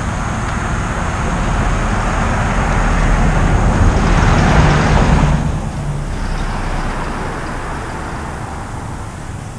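A car driving past on the street, growing louder to about five seconds in and then fading away.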